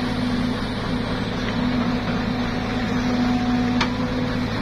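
Heavy diesel engines of a tracked excavator and a loaded dump truck running steadily in a low drone. A single sharp click comes about four seconds in.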